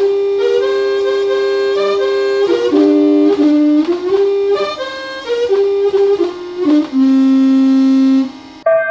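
Chime melody of a Japanese municipal disaster-prevention radio system, played in a reedy, accordion-like tone as a single line of held notes and ending on a long low note about eight and a half seconds in. Right at the end, a different chime with a piano-like tone begins.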